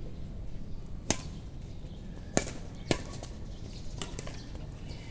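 Badminton rackets striking a shuttlecock in a fast rally: a sharp hit about a second in, two more in quick succession about halfway through, and fainter hits near the end.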